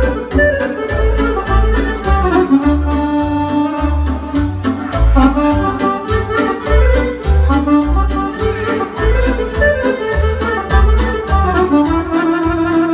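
Romanian folk party band playing live instrumental music for a shepherd's song, with an accordion melody over electronic keyboards and a steady bass beat.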